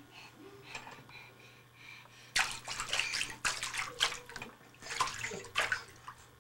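Bathroom sink faucet water running into the basin, starting abruptly about two and a half seconds in, with uneven splashing as a baby's hand slaps in the stream; it tails off near the end.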